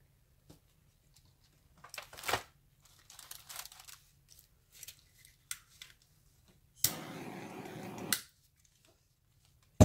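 Handling noises: crinkling and rustling with a few light knocks. Then a steady hiss lasting just over a second, starting and stopping with a click. Near the end comes one sharp, loud click.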